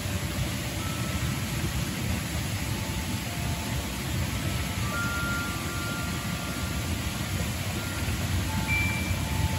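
Wind chimes ringing now and then: single clear tones at different pitches that hang for a second or two and overlap, over a steady low rumble.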